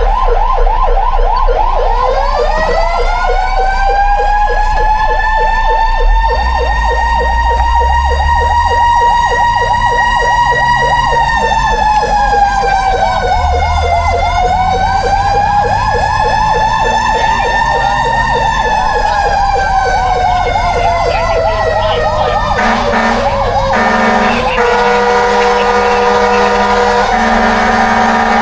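Fire truck sirens sounding together: a fast warbling yelp throughout and a slow wail that climbs, holds, dips, rises again and falls away, over a low engine rumble. Near the end, steady tones in short blocks join in.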